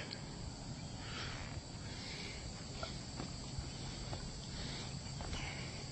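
Insects chirring steadily, with a few faint footsteps on weathered wooden railroad ties.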